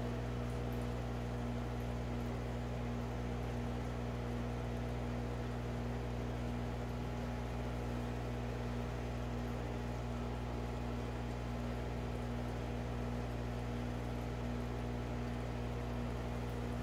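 Steady electrical hum of running aquarium equipment, several low pitches held without change over a faint even hiss.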